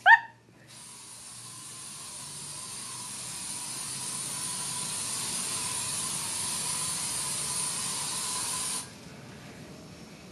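Aerosol can of insecticide spraying in one long continuous hiss, growing a little louder and cutting off abruptly about nine seconds in.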